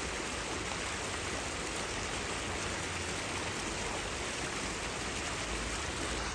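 Small bubbler fountains in a pond splashing steadily: an even hiss of water falling back onto the surface.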